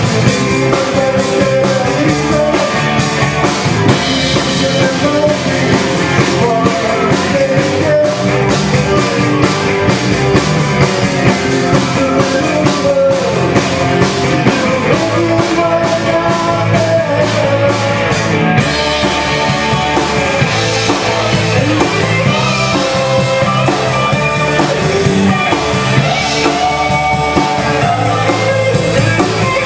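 Live rock band playing: electric guitars, bass guitar and drum kit.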